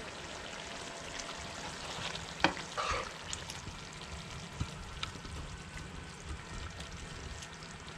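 Curry of shrimp, potato and saime beans sizzling in a hot pan while a metal ladle stirs it, with a few sharp knocks of the ladle against the pan about two and a half, three and five seconds in.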